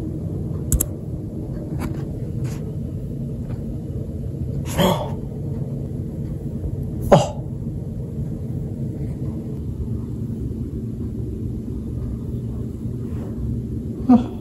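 A steady low rumble, with a sharp click from a laptop's return key about a second in. Two short, louder sudden sounds come about five and seven seconds in, and another just before the end.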